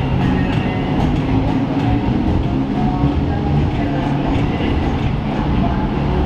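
Steady, loud rumble of slow city traffic: car engines and exhausts running together, with no single event standing out.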